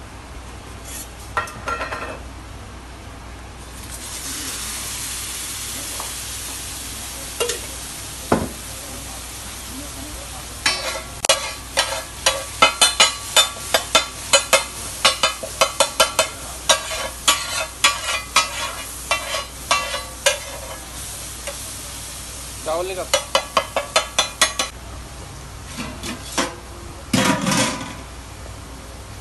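Butter and masala sizzling on a hot flat iron griddle (tawa), with a steady hiss. From about ten seconds in, a metal spatula clacks and scrapes rapidly against the griddle in several quick runs as the masala is worked.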